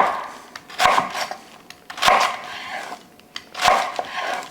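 Chef's knife cutting through a head of cabbage on a cutting board, three strokes, each a sharp knock followed by a short rasp.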